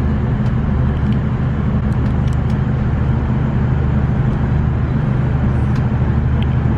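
Passenger train running, heard from inside the carriage: a steady low rumble and hum.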